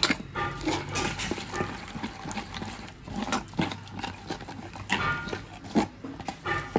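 A bare hand squelching through thick, wet cornflour-and-maida batter in a steel bowl, making irregular sticky squishes and slaps.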